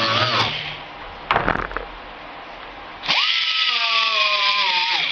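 Small right-angle grinder with a sandpaper disc sanding fiberglass: a motor whine, wavering in pitch under load, with the hiss of sanding. It stops about half a second in, a few knocks follow, then it starts again about 3 s in and stops near the end.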